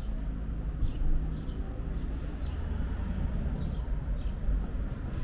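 Outdoor background: a steady low rumble with faint, short chirps of small birds every second or so.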